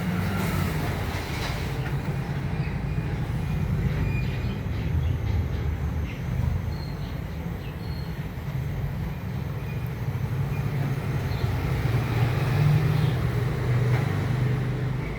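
A 6-foot heavy-duty lathe running under power: a steady low mechanical hum from its V-belt-driven geared headstock, swelling and easing slightly in level.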